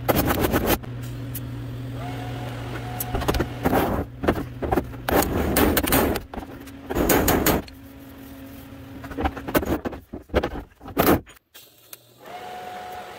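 Body hammer striking a TIG-welded seam on a van's sheet-steel body panel against a hand-held dolly, in quick bursts of metallic clanging several times over. That clang is the sign the weld is being crushed between hammer and dolly and getting the desired stretch. Near the end, a TIG welding arc hums steadily as welding resumes.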